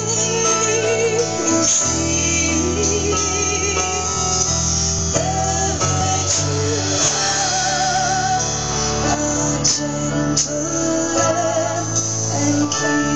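Live worship music: voices singing held, wavering notes over guitar and sustained low bass notes that change every couple of seconds.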